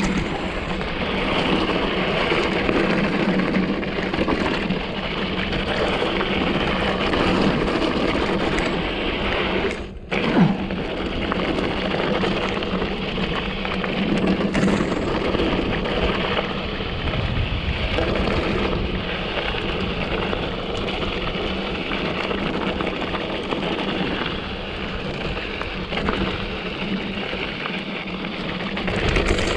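A 2014 Giant Trance 3 full-suspension mountain bike ridden down a dirt trail: a steady rush of tyre noise, bike rattle and wind on a GoPro microphone. About ten seconds in the sound drops out for a moment, then there is a sharp thud.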